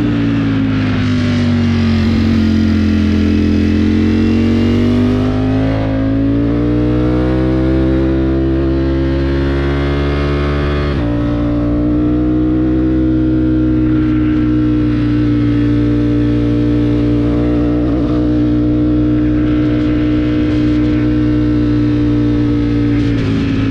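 Motorcycle engine pulling under way. The revs dip, then climb steadily in second gear, then fall suddenly about halfway through as it shifts up to third, and the engine then holds a steady cruise.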